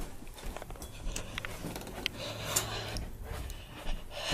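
Quiet panting and hard breathing through the mouth from a tongue burning on very hot sauce, with small clicks and rustles.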